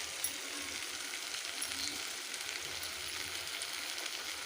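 A whole masala-coated fish sizzling and crackling steadily in a little oil on a flat iron dosa pan, its butter marinade cooking out into the oil.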